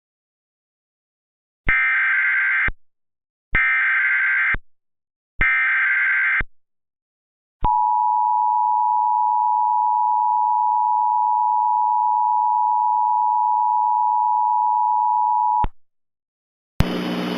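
Emergency Alert System tones announcing a tornado warning. First come three one-second bursts of SAME header data, a harsh electronic screech. Then the two-tone attention signal (853 and 960 Hz) sounds steadily for about eight seconds and cuts off suddenly.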